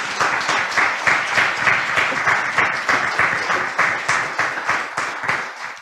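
Audience applauding, a steady patter of many hands clapping that fades out near the end.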